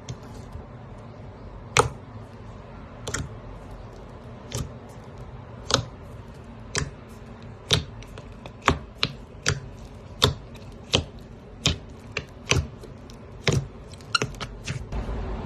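Slime being handled, making sharp popping clicks about once a second, closer together in the second half, with a few quicker, smaller clicks near the end.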